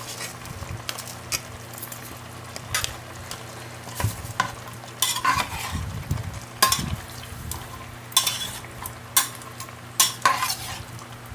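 A utensil stirring tofu and chicken feet in broth in a pot, with irregular clinks and scrapes against the pot over a steady cooking sizzle.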